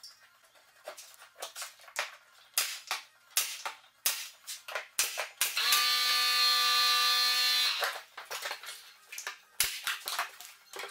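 Hand work at the foot of a plaster wall: a run of sharp taps and scrapes. About five and a half seconds in, a steady buzz lasts about two seconds.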